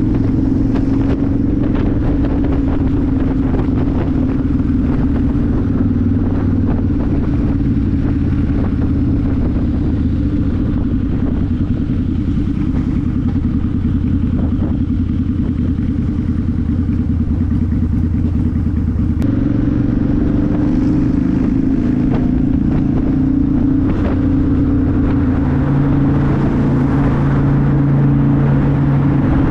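Harley-Davidson V-Rod's liquid-cooled V-twin running steadily under way, heard from the rider's seat with wind noise. The engine note changes abruptly about two-thirds of the way in, and the sound grows fuller near the end as the bike rides into a road tunnel.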